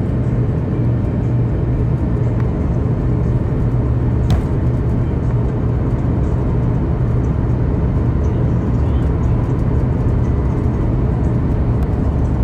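Steady low drone of an airliner's turbofan engines and rushing airflow, heard inside the passenger cabin during the descent to landing, with one faint click about four seconds in.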